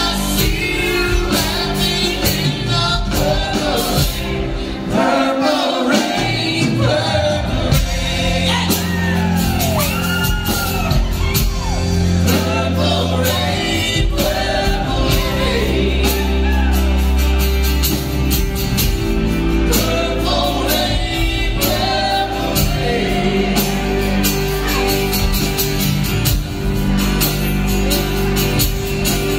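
Live band playing a song: vocals over acoustic guitar, electric guitar, bass guitar and a drum kit, steady and loud throughout.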